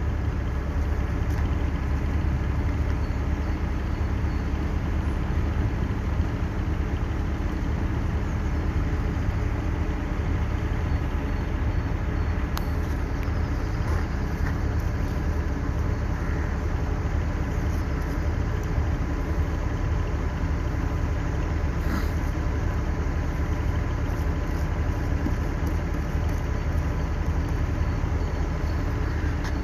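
Car engine idling steadily during a cold-weather warm-up, a low even rumble.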